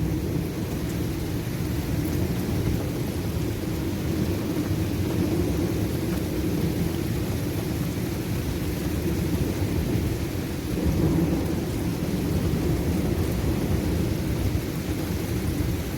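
A severe thunderstorm's steady, deep roaring rumble overhead, with light rain. It swells slightly about eleven seconds in. The roar comes with little wind at ground level and almost no lightning, and the recordist wonders whether it is a rain-shrouded tornado or something high in the atmosphere.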